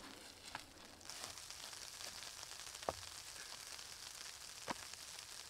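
Faint, steady hiss of light rain falling on leaf litter, starting about a second in, with a few scattered sharp ticks.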